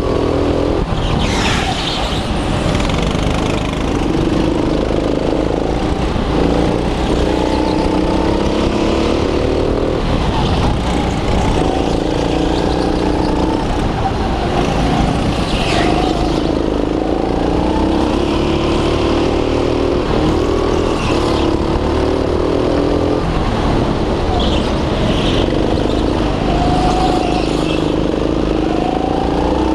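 Go-kart's small engine heard onboard, its pitch rising as it accelerates and dropping back again and again through the laps, with a few brief higher-pitched squeals.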